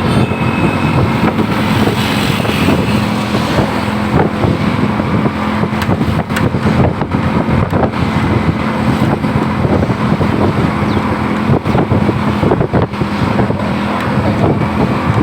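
Large bus engine running close by, a steady low hum under loud road noise, with wind buffeting the microphone.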